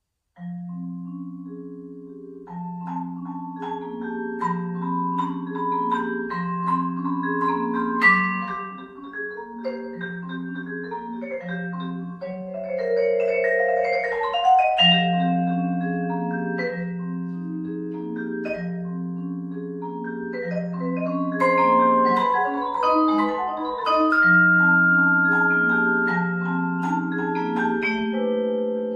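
Solo vibraphone played with four mallets, starting about half a second in: struck metal bars ringing on under the pedal, a repeating low pattern of held notes beneath chords and a higher melody.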